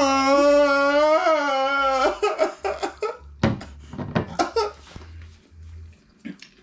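A man's voice letting out one long, loud held cry lasting about two seconds, wavering slightly in pitch, then cutting off into a run of short bursts of laughter.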